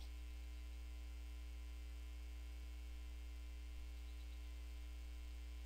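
Low, steady electrical mains hum, unchanging, with nothing else heard.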